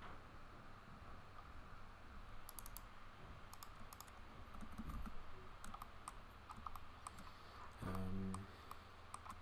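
Computer keyboard keys and mouse buttons clicking in scattered bursts from about two seconds in, over a faint background hum. Near the end there is a short low hum that lasts about half a second.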